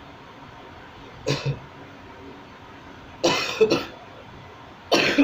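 A man's sneezes, brought on deliberately by tickling inside his nose with a toothpick: a short catch of breath about a second in, then two sharp sneezes, the last one the loudest.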